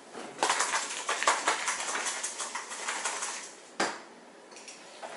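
A quick run of rapid, irregular clicks and rattles lasting about three seconds, ending in one sharp knock.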